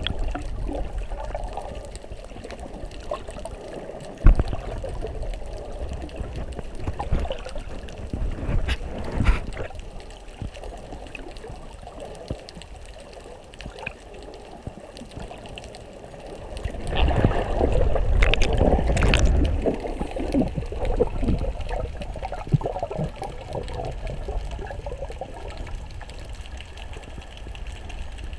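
Muffled underwater sound picked up by a GoPro camera in its waterproof housing: water sloshing and bubbling, with scattered clicks and knocks. One sharp knock comes about four seconds in, and the sloshing grows louder for a few seconds past the middle.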